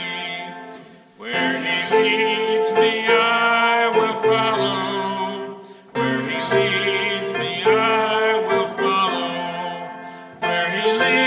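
Congregational hymn singing with instrumental accompaniment. It goes in phrases, with a short break and a fresh entry about every four and a half seconds.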